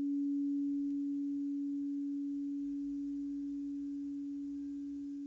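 A single pure, steady meditation tone held at one low-mid pitch, swelling in and then fading slowly.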